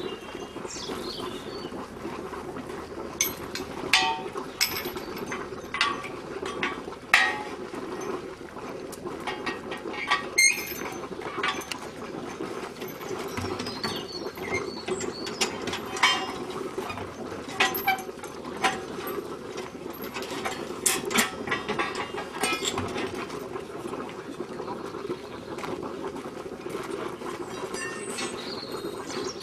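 Irregular metal clanks and chain rattles as a heated steel boiler firebox section hangs from a chain hoist and is set down onto a steel stand, over a steady low hum. The clanks are most frequent in the first two thirds and thin out near the end.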